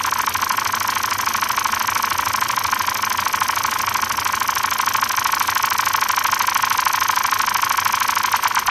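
Experimental ambient electronic music: a fast, continuous rattling buzz with a steady whistle-like tone in it.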